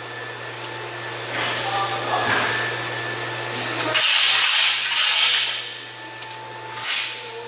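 Compressed air hissing in two bursts while a smoke leak tester is hooked up to the intake system: a longer hiss starting about four seconds in, and a shorter one near the end, over a steady low hum.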